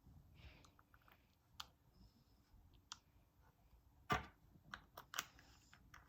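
Slime being mixed with red and blue colouring, giving faint, scattered small clicks and pops, the loudest about four seconds in.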